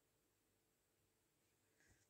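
Near silence: faint room tone, with one faint tap near the end.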